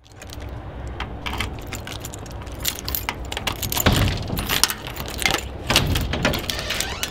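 Irregular clinks, rattles and jingles of small hard objects being handled, over a steady low rumble; the clatter grows busier and louder from about halfway through.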